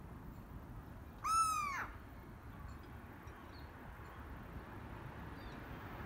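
Black-headed gull giving a single drawn-out call about a second in, its pitch rising and then falling, over a steady low background rumble.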